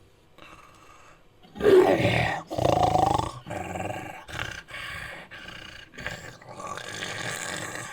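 Made-up creature vocal effects layered from a human voice with wolf and leopard recordings: two loud roaring calls about two seconds in, then a series of shorter, quieter calls.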